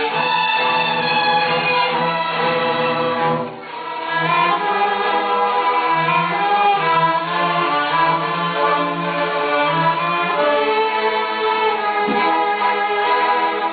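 A middle-school string orchestra of violins and cellos playing, with sustained bowed notes under a moving melody. The sound dips briefly at a phrase break about three and a half seconds in, then the full ensemble carries on.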